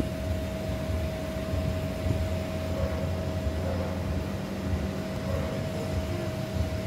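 Car engine idling, heard from inside the cabin: a steady low rumble with a constant hum over it.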